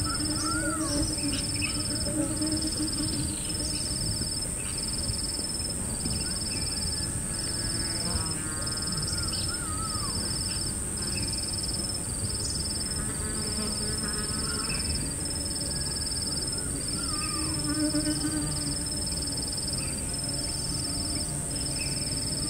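Outdoor nature ambience: birds calling now and then, some with a harsh crow-like cawing, over a steady high insect drone and a chirp that pulses about once a second.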